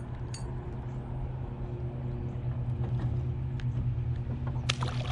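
A steady low motor hum, with a few faint clinks and a short noisy rustle near the end.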